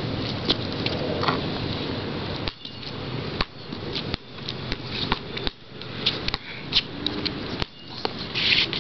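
A basketball being dribbled on a hard outdoor court: a series of sharp, irregularly spaced bounces.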